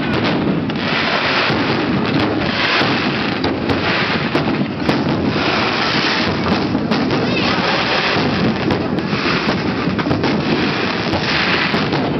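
Aerial firework shells bursting in a continuous barrage: many overlapping bangs and crackles over a steady rumble.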